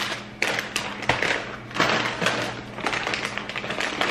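Grocery packaging crinkling and knocking as food is handled and put away in a refrigerator, in quick irregular bursts.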